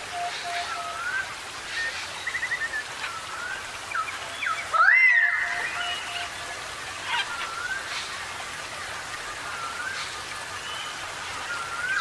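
Tropical forest ambience: several birds calling with short whistled notes over a steady background hiss. A fast, even-pitched trill sounds near the start and again after the middle. About five seconds in, one loud rising whistle is the loudest call.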